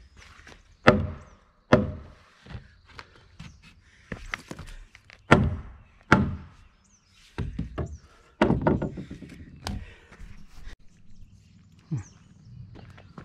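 Irregular heavy knocks and thuds of wood on wood: about five sharp loud strikes spread through, with quieter knocking and a denser clatter between.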